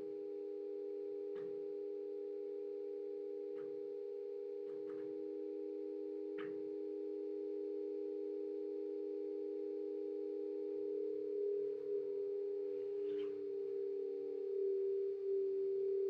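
A drone of several steady pure tones held together as a chord, with a short soft noise every second or two. About eleven seconds in, the tones swell and waver, and the noises come more often.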